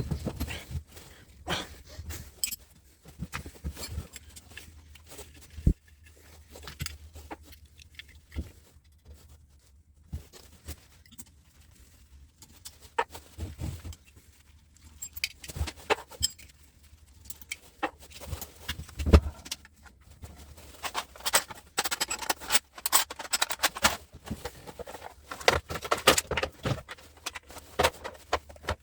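Sped-up time-lapse sound of hand tools and metal parts being worked on while a large electrical switchgear unit is taken apart: irregular sharp clicks, clinks and knocks, with one louder knock a little past the middle and busier clattering near the end.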